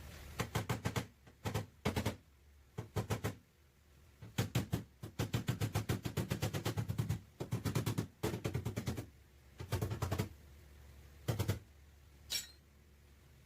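Sheet metal being struck in quick runs of sharp taps, several a second, stopping and starting, as in panel-beating of a car's dented back panel.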